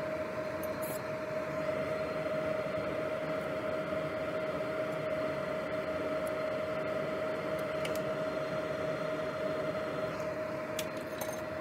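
Steady hum of electronics-repair bench equipment: an even hiss carrying one constant tone, with a few faint clicks.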